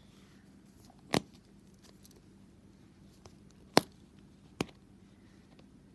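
Plastic vending-machine capsule being prised open by hand: three sharp plastic clicks, about a second in, near four seconds and just after, with faint handling noise between.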